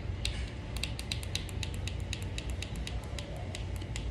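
Rapid, even clicking, about four clicks a second, from the button of a light-up plastic toy being tapped over and over to cycle its LED colours.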